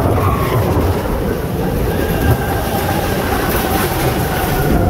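Expedition Everest roller coaster train running along its steel track, the wheels rumbling and clacking steadily.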